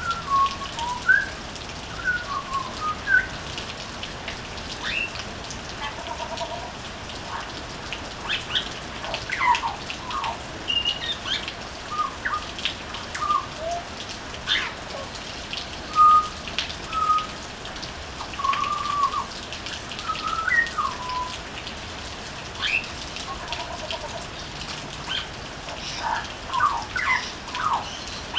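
Butcherbird singing short, clear, fluty whistled notes and brief glides in loose phrases, with pauses between. Behind it, a steady patter of rain with sharp drips.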